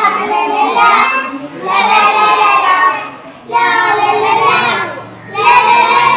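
Young children singing an action song into a microphone, in four short phrases with brief breaks between them.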